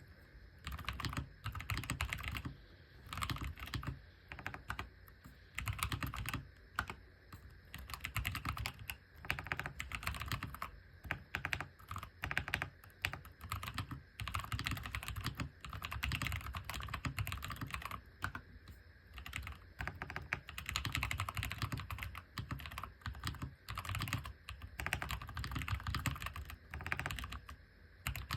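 Typing on an AJAZZ AK680 mechanical keyboard with stock brown tactile switches: bursts of quick keystrokes with short pauses between them.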